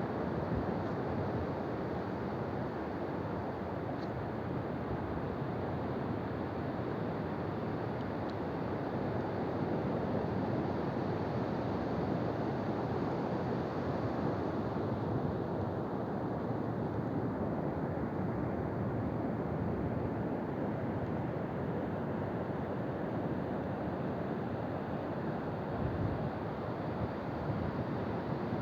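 Ocean surf washing onto a beach: a steady rush of waves with slow, gentle swells in loudness.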